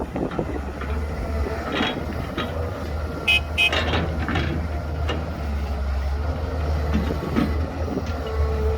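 Heavy diesel engine of earthmoving machinery running steadily, with scattered knocks and clatters. About three seconds in, two short high toots sound in quick succession, like a vehicle horn.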